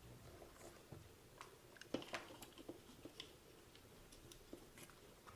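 Faint, scattered clicks and small taps of hands handling a plastic RC transmitter and a hot glue gun during close work, the loudest click about two seconds in.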